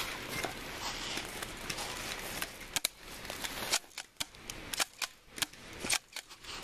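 Airsoft guns firing: after about three seconds of steady rustling noise, a string of sharp single pops comes at uneven spacing, roughly one every half second.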